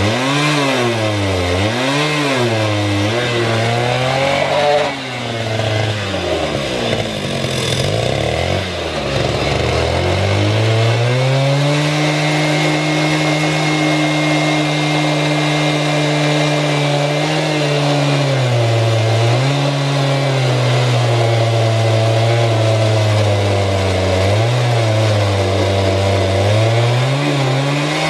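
Two-stroke chainsaw in a small chainsaw mill, ripping a log lengthwise under full load. Its engine pitch dips and recovers about once a second at first, drops low for several seconds, then climbs back and holds steady with a few brief dips.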